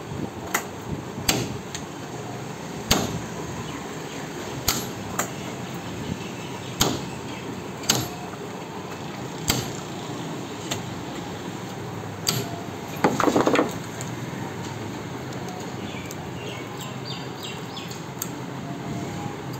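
Sharp knocks and taps at irregular intervals, one to two seconds apart, with a short rattling clatter a little past the middle, over a steady background noise.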